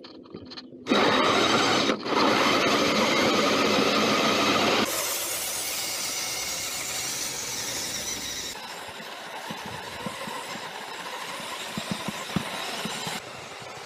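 A 1:12 scale RC Beetle's electric motor and gear drive running as the car drives over stone paving, a steady whirring noise that changes abruptly several times. There are a few short knocks near the end.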